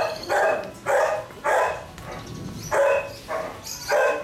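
Belgian shepherd puppies barking during play, about seven short barks in quick bunches with a brief pause midway.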